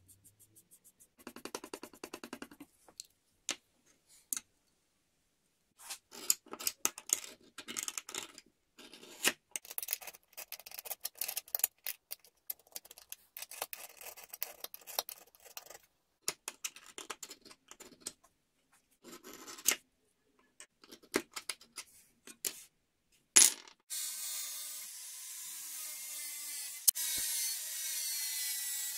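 A marker scribbling in quick strokes over a steel table saw blade, then a sharp point scratching an outline around a template on the blade in short, irregular scrapes and clicks. After one loud sharp click near the end, an angle grinder cuts into the steel blade with a steady grinding noise.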